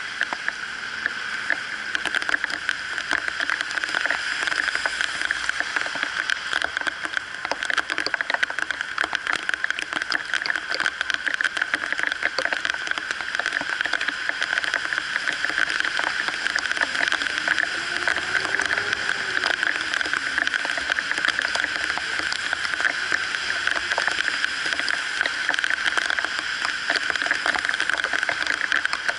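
Heavy rain falling steadily on wet pavement, with dense drops ticking close to the microphone. Part way through, a vehicle passes on the wet road with a tone that rises and then falls.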